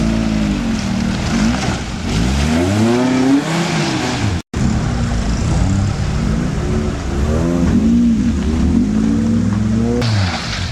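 Off-road 4x4 vehicle engine revving hard up and down over and over, its pitch rising and falling every second or so. The sound cuts out completely for an instant near the middle.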